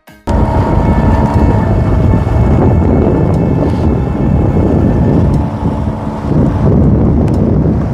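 Wind buffeting the microphone: a loud, continuous low rumble with a faint steady hum underneath.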